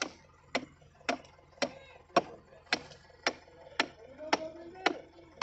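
A steady series of sharp clicks or knocks, evenly spaced at about two a second, some ten strokes in all.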